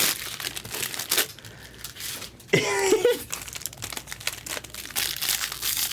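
Foil wrappers of baseball-card packs crinkling and tearing as packs are opened, the cards handled between them. A brief voice sound about two and a half seconds in.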